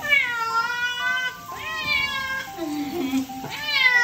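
Scottish Fold cat yowling loudly in protest at being showered: four long meows, each rising then falling in pitch, the third one lower and shorter.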